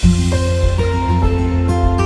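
Gentle instrumental background music, with held notes that change about every half second over a steady low bass.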